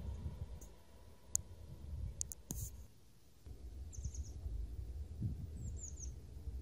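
Wind rumbling on the microphone, with a few sharp clicks in the first half. Later come two quick runs of short, high, falling bird chirps.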